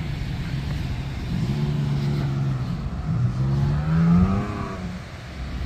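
Off-road 4x4's engine running, revving up about three seconds in to a peak near four seconds and then easing off.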